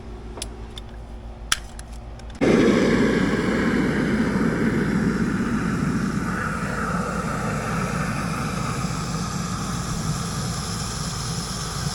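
A few light clicks, then about two and a half seconds in a can of expanding spray foam starts discharging with a loud, steady hissing rush that keeps going.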